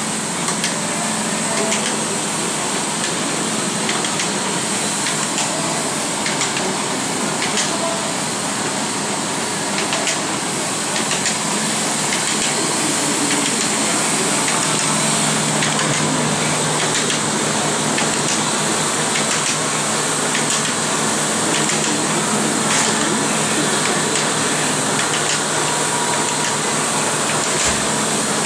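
Concept2 indoor rowing machine in use: its fan flywheel whooshing steadily, with a faint click about every two seconds.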